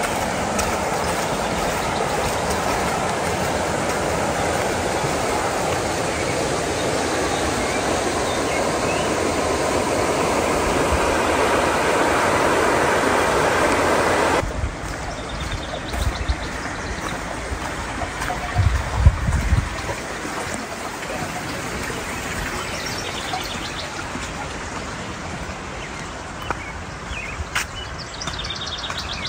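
Creek water rushing over rocks, a steady loud rush. About 14 seconds in it cuts to a much quieter stretch with a few low thumps and faint bird chirps.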